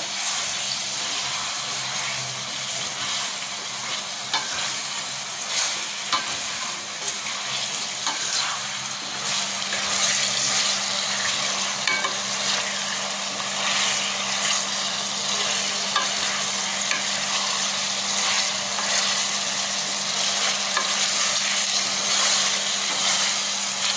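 Chicken pieces and garlic-ginger paste sizzling in hot oil in a stainless steel pot, stirred with a wooden spatula that scrapes and clicks against the pot again and again. A faint steady low hum runs underneath.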